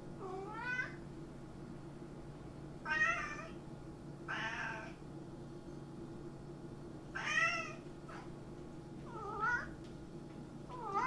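Domestic cat meowing repeatedly: about six separate meows a second or two apart, the first rising in pitch, the last cut off by the end.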